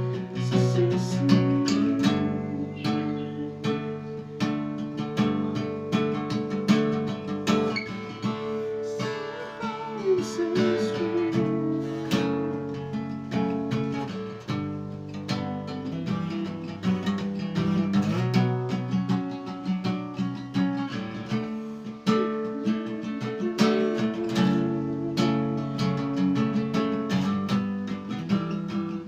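D&D Django Jr. mahogany acoustic guitar playing power chords, strummed and picked in a steady run of chord changes, with a short sliding lead line about ten seconds in.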